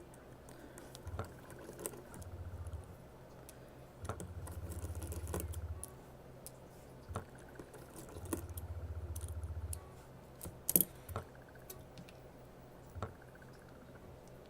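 Small clicks and taps of a pry tool on the parts of an iPhone 6 being taken apart, the sharpest click about eleven seconds in. A low hum comes and goes in three stretches of one to two seconds.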